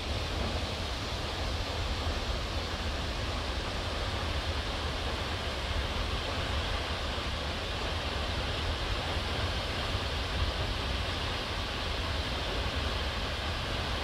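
Seljalandsfoss waterfall's falling water, a steady, unbroken rush with a strong low rumble.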